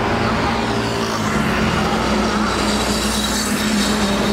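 Street traffic: buses and cars driving past close by, tyre and engine noise over a steady low engine hum, swelling as a vehicle nears late on.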